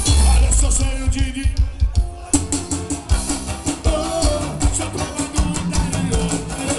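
Forró band playing live through a loud PA: a heavy bass and drum beat with guitar and a singer, the beat dropping out briefly about two seconds in before kicking back in.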